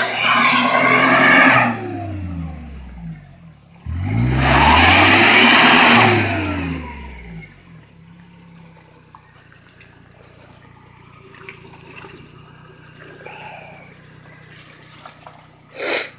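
Maruti Suzuki Omni van's small three-cylinder petrol engine revving on a muddy track: a rev easing off at the start, then a harder rev about four seconds in, its pitch rising and falling under a loud rush of noise, before it drops to a low idle. A short loud burst of noise comes near the end.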